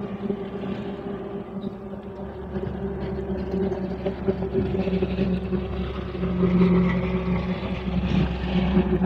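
A motor engine running steadily with a low, even hum, getting louder about six to seven seconds in.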